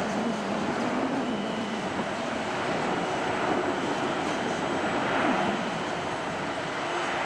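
Jet engines of a Boeing 767-300ER airliner, a steady rushing noise with a low wavering hum, swelling to its loudest about five seconds in.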